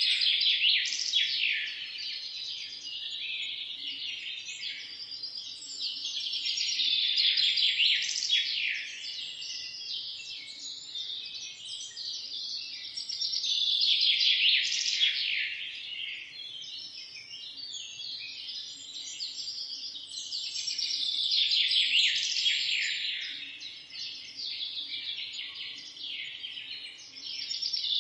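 A dense chorus of many small birds chirping and trilling together, high-pitched, swelling louder and fading back in waves every several seconds.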